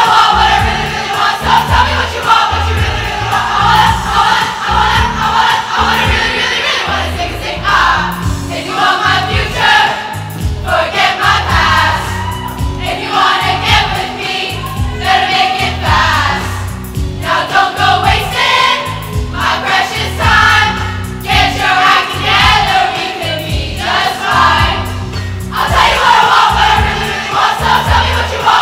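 A large group of voices singing a pop song together over a recorded backing track with a steady, heavy beat.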